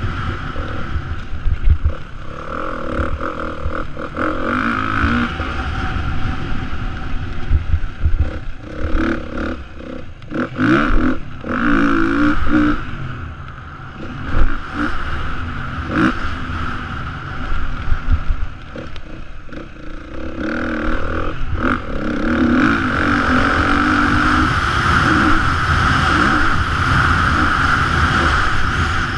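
The single-cylinder four-stroke engine of a Beta 430 RR-S dirt bike, ridden hard round a motocross track, revving up and down through the gears. It backs off twice in the middle, then is held at high revs for the last several seconds, with occasional sharp knocks.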